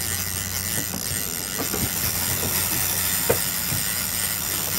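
Fishing reel being cranked while a hooked sockeye salmon is brought in, with irregular clicks and ticks from the reel. Under it runs the steady hum of the boat's outboard motor at trolling speed.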